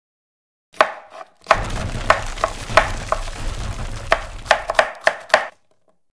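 Wood-chopping and splintering sound effects: about a dozen sharp, irregularly spaced knocks over a low rumble, stopping about five and a half seconds in.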